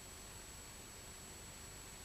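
Steady hiss with a faint high whine and no other sound: the noise floor of a silent film's video transfer.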